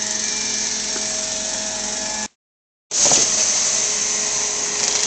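Truck-mount hot-water extraction wand on carpet: a loud steady rushing hiss of the vacuum with a thin whine under it. It cuts to silence for about half a second a little over two seconds in, then comes back as the wand sprays steaming water and sucks it back up.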